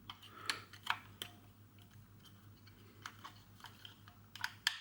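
Scattered light clicks and taps of batteries and the battery compartment of a super 8 camera being handled as the batteries are put in, with a few clicks about half a second to a second in and a quicker group near the end.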